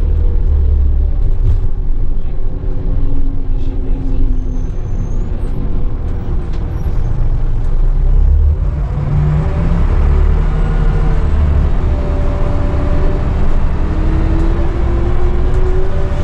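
Scania L94UB city bus heard from inside the rear of the cabin: its rear-mounted 9-litre five-cylinder engine running under a steady low rumble as the bus drives. About halfway through the engine note climbs, with a rising whine near the end as the bus accelerates.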